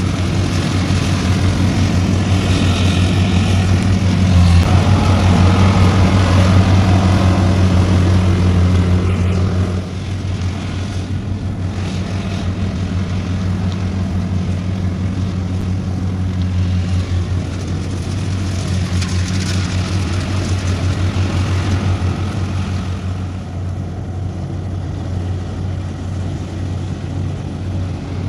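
Kubota combine harvester running steadily as it cuts ripe rice, its diesel engine giving a constant low hum over a rushing mechanical noise. The sound drops a little in level about ten seconds in.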